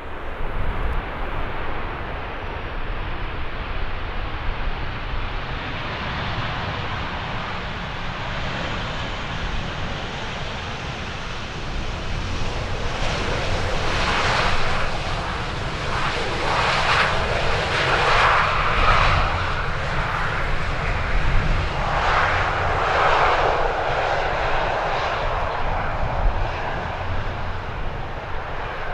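Jet airliner passing, its engine noise swelling about halfway through with a thin high whine over it and easing off near the end. Strong wind rumbles on the microphone throughout.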